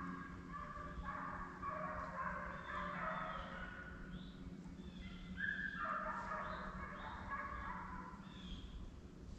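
A pack of deer hounds baying on a chase, many dogs' drawn-out bawls and yelps overlapping continuously.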